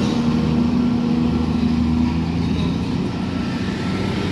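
Diesel engine of an intercity economy bus running as it drives past close by: a steady low drone that eases a little near the end as the bus moves away.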